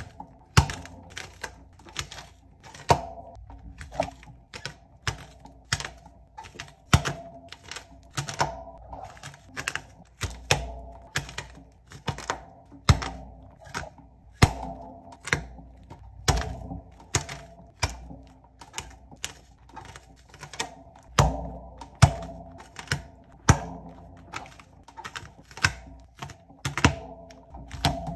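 Clear plastic perler bead pegboards being pried off a large sheet of ironed, fused perler beads. The beads pop free of the pegs in a run of sharp crunching clicks, irregular, about two a second.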